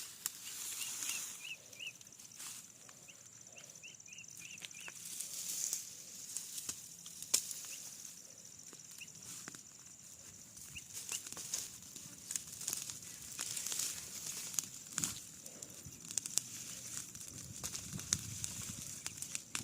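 Outdoor ambience with short, high bird chirps in a few quick runs over a steady high hiss, with scattered rustles and clicks.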